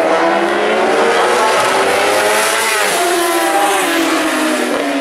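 1000cc four-stroke superbike racing engines at high revs passing, the pitch climbing and then dropping as they go by, with more engine notes rising again near the end.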